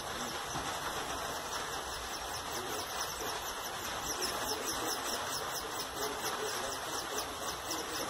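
A small songbird chirping in a fast, even series of high, falling notes, over a steady rushing noise.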